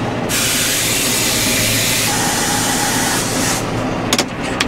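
Tractor engine running steadily, heard from inside the cab while pulling a rotary hoe, under a loud hiss that starts suddenly just after the start and breaks off near the end, followed by a couple of sharp clicks.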